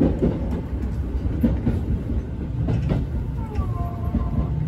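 Seibu 6000 series electric train rolling into a terminus platform, heard from the driver's cab: a steady low rumble with a few wheel clacks over the rail joints and points, and a wavering squeal from the wheels or brakes near the end as it slows to a stop.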